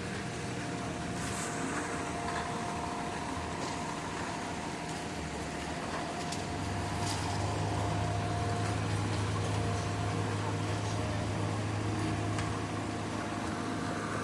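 Heavy engine running steadily, its low hum growing stronger about six seconds in, with a faint steady whine above it and a few light clicks.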